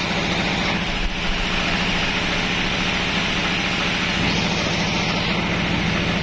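Sawmill machinery running steadily: an engine drone with an even hiss over it.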